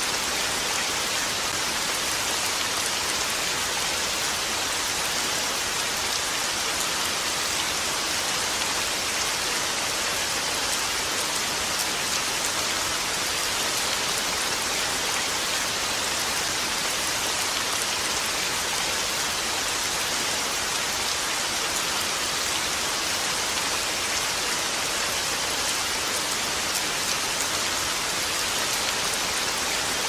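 Steady rain falling on a lake: an even, unbroken hiss that holds the same level throughout.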